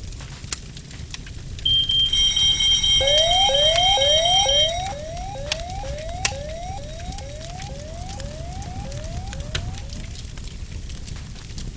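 Fire alarm going off. A shrill steady high tone comes in about two seconds in and cuts out about three seconds later. A rising whoop repeats about twice a second and fades away. Under it all is a low rumble with scattered clicks.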